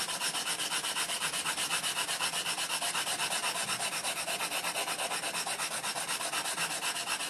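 Wooden block scrubbing a wet slurry of coarse #120 Kongo-to abrasive powder over the flat of a steel kitchen knife blade, in quick, even back-and-forth strokes with a gritty rasp. The blade's surface is being abraded to remove stain and bring back its whetstone-mark (kasumi) finish.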